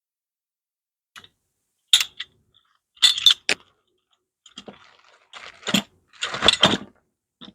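Small loose metal parts clinking and rattling as they are handled, in several irregular clusters of sharp clatters.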